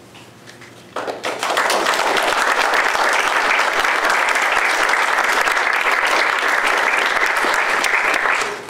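Audience applauding, starting suddenly about a second in, holding steady, and dying away near the end.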